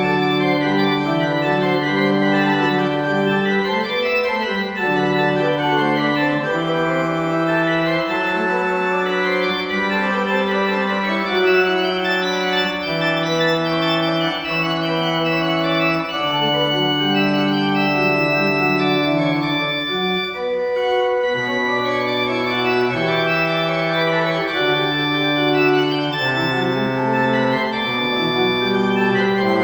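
Organ playing slow, sustained chords that change every second or two, with a brief break about two-thirds of the way through.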